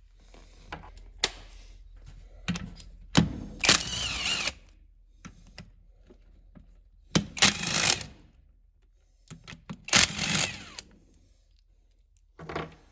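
Cordless impact driver run in three short bursts, hammering bolts loose on a tractor transmission, with short clicks and clanks of tools and parts in between.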